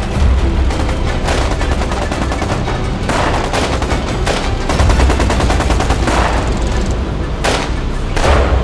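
Sustained rapid machine-gun fire, with louder bursts every second or so, over the low drone of motorcycle engines.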